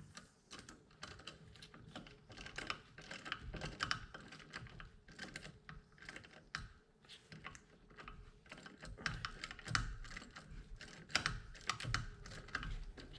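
Hand tools clicking and tapping on a nut as it is threaded onto and tightened down on the brake master cylinder's mounting bracket: a run of small, irregular metal clicks.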